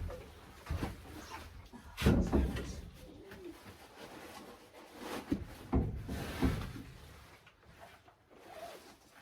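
Heavy plant pots being moved and set down on the floor: several dull thumps with scraping and shuffling between them, the loudest about two seconds in and again around five to six and a half seconds in.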